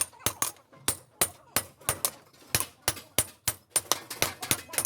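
Hammer blows ringing on an anvil while forging a Polski-pattern axe head, about four sharp metal strikes a second in an uneven rhythm.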